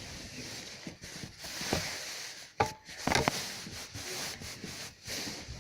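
Rubbing and rustling noise with a few sharp clicks, about two and a half and three seconds in.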